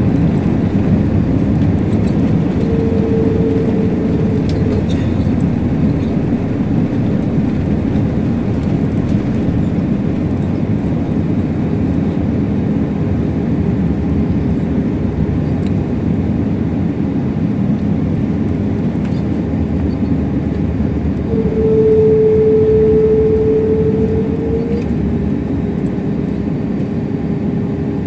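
Steady low rumble inside an Airbus A321 airliner cabin. A steady mid-pitched tone comes in twice: briefly a few seconds in, and again for about three seconds about three quarters of the way through, when the rumble gets slightly louder.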